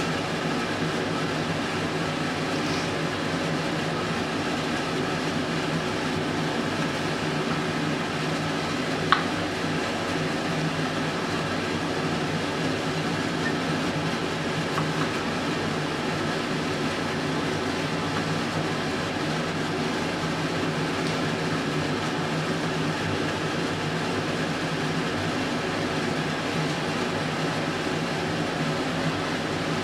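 Steady mechanical hum and hiss, like a fan or air conditioner running, with one sharp click about nine seconds in.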